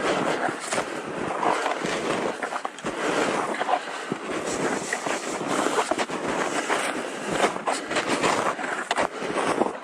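Footsteps crunching and scraping through deep snow in an irregular run of steps.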